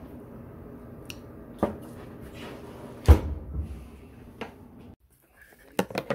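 Chicken in red sauce simmering in a stainless steel pan, a steady low hiss, with two sharp knocks against the pan or stove, the louder about three seconds in. The sound cuts out near the end, followed by a few light clicks of a wooden crate being handled.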